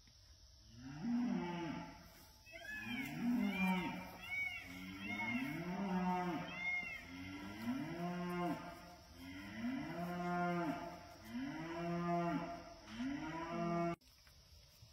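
Llama humming over and over: about eight hums of a second or so each, every one rising then falling in pitch, with fainter, higher hums joining in for a few seconds. The sound cuts off suddenly near the end.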